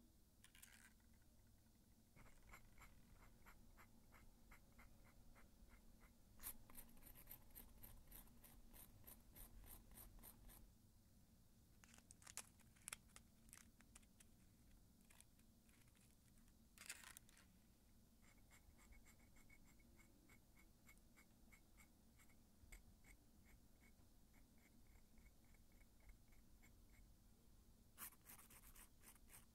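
Faint, quick scraping strokes, several a second, of a stainless-steel gel removal tool's bladed head scraping softened gel polish off the nails, with a few louder crinkles of the aluminium foil wraps.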